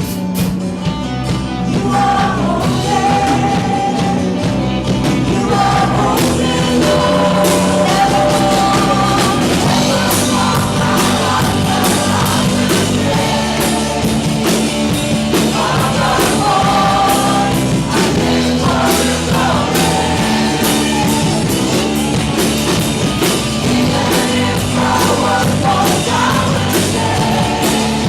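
Live church worship band playing an upbeat rock-style praise song, with singing over the band.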